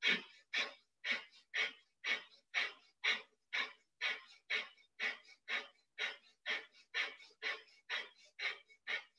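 Breath of fire: a woman's rapid, forceful breaths pumped from the belly, short and evenly spaced at about two a second.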